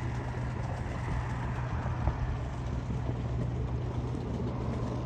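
A small recovery workboat's inboard engine running steadily at low revs while the boat holds alongside a cruiser, with a single knock about two seconds in.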